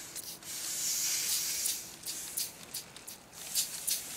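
Compressed air hissing through a Lego Technic pneumatic engine's cylinder and slide valve as it starts up. The steady hiss breaks into rapid, evenly spaced puffs, about three a second by the end, as the valve switches the air from one end of the piston to the other and the flywheel gets going.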